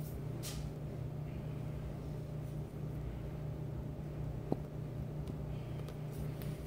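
A steady low hum, with a few faint brief clicks, one sharper click about four and a half seconds in.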